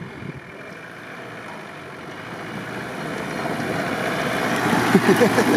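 Off-road vehicle's engine running, growing steadily louder as it drives up close on snow.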